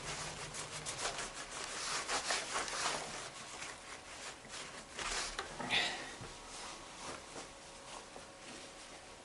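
Paper towel rubbing and wiping over a Roomba's plastic body in quick scrubbing strokes, busiest in the first few seconds and thinning out later, with one brief sharper scrape just before six seconds in.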